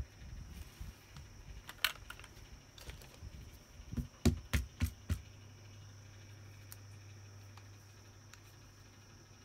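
Hands handling a plastic fashion doll: soft rustling and a couple of light clicks, then a quick run of about five sharp knocks, about four to five seconds in, as the doll is set down on the table.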